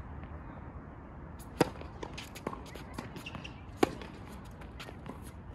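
Tennis ball struck by racket during a rally on a hard court: two sharp hits about two seconds apart, with fainter ticks between them.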